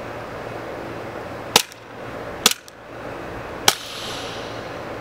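APS ACP CO2 gas-blowback airsoft pistol firing three sharp shots, about a second apart, over steady outdoor background noise.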